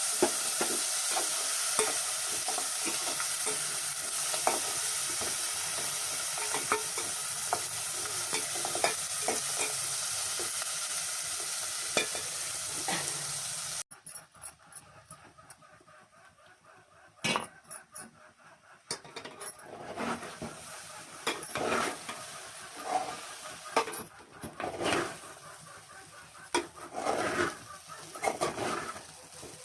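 Poha frying in a pan with a steady sizzle while a spoon stirs and scrapes through it. About fourteen seconds in, the sizzle cuts off abruptly, leaving only scattered scrapes and clinks of the spoon against the pan.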